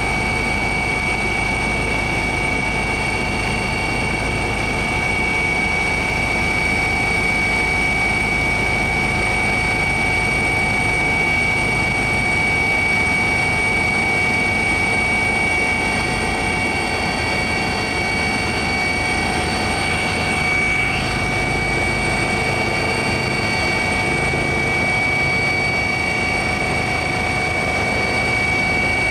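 Aircraft engine drone heard from on board: a loud, steady noise with a constant high whine that does not change.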